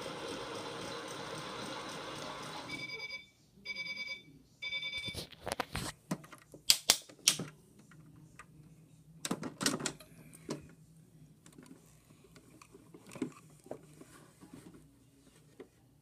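Toy Miele washing machine's small motor whirring steadily, then stopping about three seconds in, followed by three short electronic beeps. After that come sharp plastic clicks and knocks, loudest in the middle, fading to scattered faint clicks.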